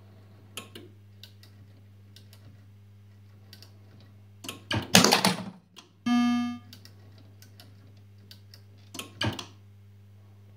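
Williams Whirlwind pinball machine powered on: a steady electrical hum with scattered light clicks, a loud burst of noise about five seconds in, then a short electronic tone from the game's sound system, and another noisy burst about nine seconds in.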